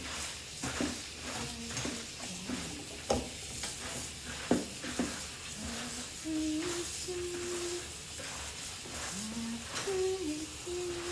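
Egusi soup sizzling in the pot while it is stirred, with sharp clinks of the spoon against the pot about three and four and a half seconds in. A person hums a tune over it.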